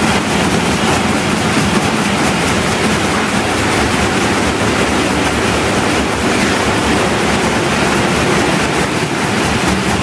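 Multi-unit sheet-fed offset printing press running at production speed, about 16,500 sheets an hour: a loud, steady mechanical clatter with a fast, even ticking.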